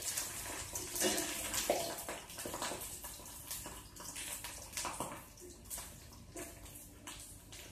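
Seedai dough balls deep-frying in hot oil in a kadai: a sizzling hiss with many small crackles and pops. The sizzle dies down over the last few seconds.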